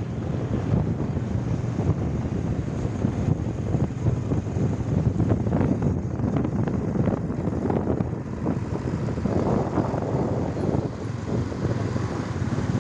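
A motorcycle riding along, its engine running under road noise, with wind rushing over the microphone.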